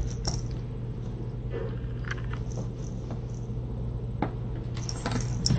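Cat purring steadily, a low continuous rumble, with a few faint clicks and rustles of kittens moving on the bedding, sharper near the end.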